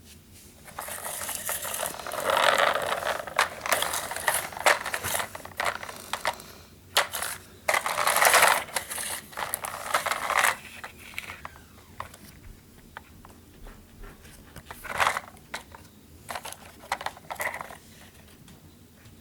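Small toy cars handled and moved about on a hard surface: uneven bursts of scraping and rattling with sharp clicks, busiest in the first half and sparser near the end.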